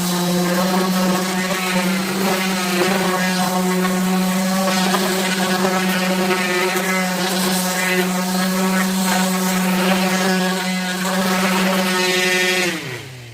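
Electric orbital sander running steadily as it sands wooden cabinets, then switched off near the end, its pitch falling as it spins down.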